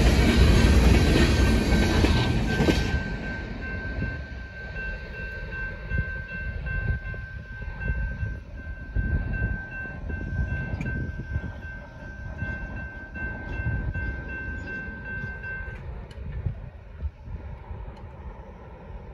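The last empty gondola cars of a freight train roll past with wheel and rail noise, which drops away about three seconds in as the train moves off, leaving a low rumble. A railroad crossing warning bell rings steadily over it and stops a few seconds before the end, as the gates go up.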